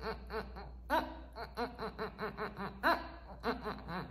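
A woman's voice in a quick run of short, laughter-like pulses, about four a second, with brief pauses about a second in and near three seconds.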